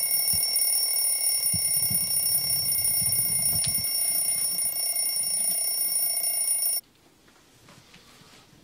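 Electronic alarm sounding a steady, high-pitched tone, cut off suddenly about seven seconds in, with soft knocks and rustling under it in the first few seconds.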